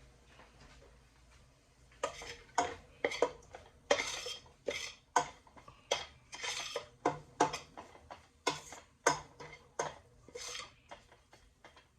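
A spoon clanking and scraping against the cooking pot while stirring chicken and curry, about two strokes a second, starting about two seconds in.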